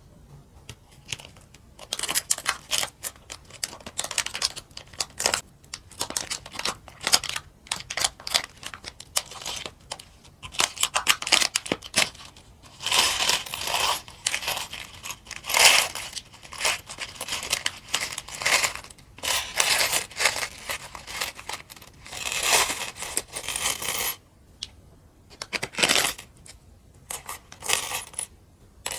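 Mini plastic building bricks being handled: a dense run of small clicks and clatters, with a few longer rustling stretches.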